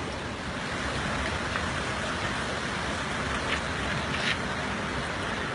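Steady rush of water at a steaming hot-spring pool, with a few faint ticks like drips or small splashes.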